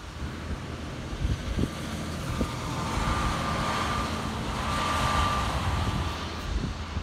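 A semi truck driving past, its engine rumble and tyre noise on the wet road swelling to a peak about five seconds in and then fading, with a faint whine near the loudest part.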